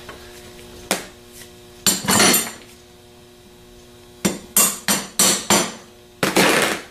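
Sharp metal taps and clicks of a small tool against a Delco 37MT starter's lever housing, pushing a part down until it sits recessed: single taps about one and two seconds in, a quick run of five taps around four to five seconds in, and a longer scraping rattle near the end.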